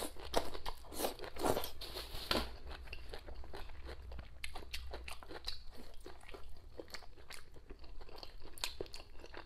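Close-up eating sounds: a mouthful of cooked leafy greens being bitten and chewed. Many small wet, crisp crunches, loudest in the first couple of seconds, then softer chewing.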